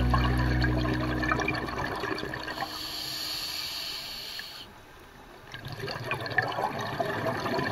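A music track fading out over the first second or so, then underwater crackling and bubbling from a scuba dive, probably a diver's exhaled breath. The bubbling drops away briefly about five seconds in, then returns.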